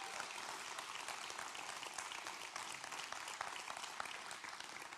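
Congregation applauding, a steady patter of many hands clapping that fades slowly toward the end.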